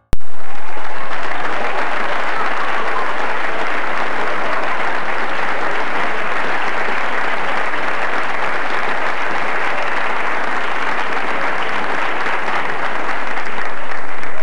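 Audience applauding: dense, steady clapping that begins suddenly and holds at an even level.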